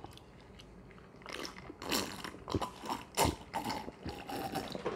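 A man gulping down a glass of iced soda: a series of swallows, a little under a second apart, starting about a second in.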